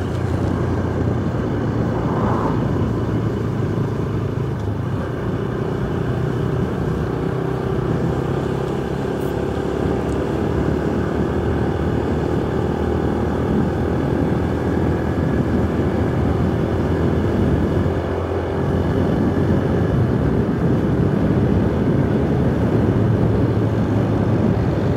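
Yamaha YBR 125's single-cylinder four-stroke engine running steadily under way, heard from the rider's position with wind and road rush. The engine note dips briefly and changes about three-quarters of the way through.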